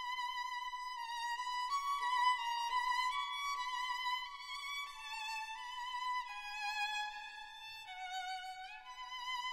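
Background music: a solo violin playing a slow melody of held notes with vibrato, sliding up into a new note near the end.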